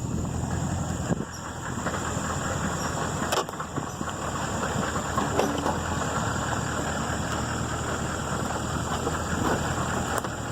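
Pickup truck driving slowly over rough pasture, heard from inside the cab: a steady low engine drone with rattling and jolts, and one sharp knock about three and a half seconds in.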